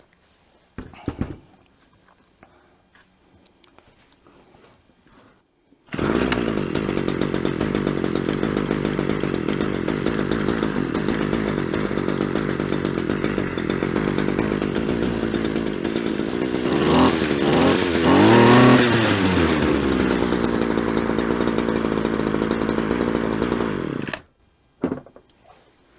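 Homelite HLT25CS string trimmer's small two-stroke engine starting on its repaired pull starter after choke and prime: it catches abruptly about six seconds in and runs steadily. It is revved up and back down twice, then cut off suddenly near the end. A brief noise about a second in comes before the engine starts.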